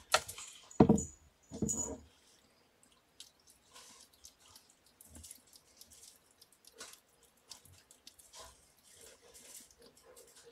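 Handling of cat toys on a paper-covered floor: a few louder knocks and taps in the first two seconds, then scattered light clicks, taps and rustles.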